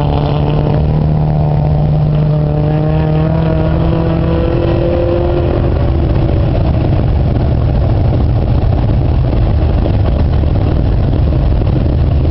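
Stock car engine under power on a dirt oval, its pitch climbing slowly over the first several seconds as it accelerates. It then fades into a steady low rumble.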